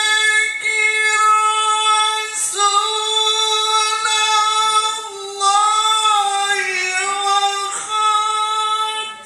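A male Qur'an reciter chanting melodic tilawah into a microphone, in long high held notes with wavering ornaments. The notes are broken by short breaths about two and a half seconds in and again near eight seconds.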